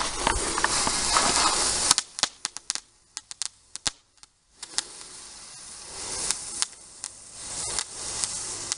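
A small firework going off on the ground: a loud hiss for about two seconds, then a quick run of sharp cracking pops, then a softer hiss with a few scattered pops.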